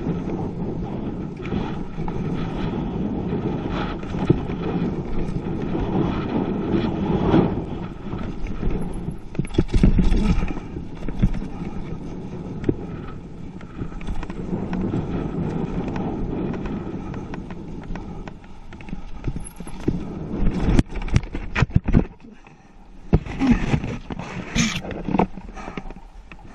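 Mountain bike ridden fast down a dirt trail: a steady rush of wind over the helmet-camera microphone and tyre noise on dirt, with the bike rattling and knocking over bumps. In the last few seconds the rush drops away and separate, louder knocks stand out.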